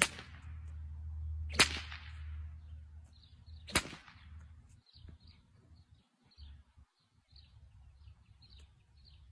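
Whip cracking three times, sharp and loud, about two seconds apart; faint bird chirps follow.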